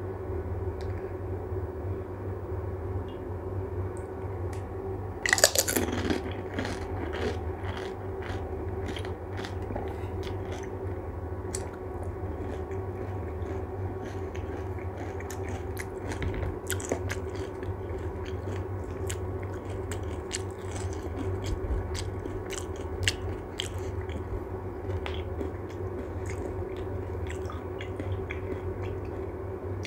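Close-up crunching and chewing of crisp panipuri (golgappa) shells. One loud crunch about five seconds in as a whole puri is bitten, then scattered crackling crunches as it is chewed, over a steady low hum.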